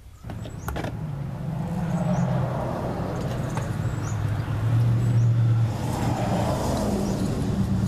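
A vehicle engine running, its low hum wandering in pitch, with a few light clicks over it.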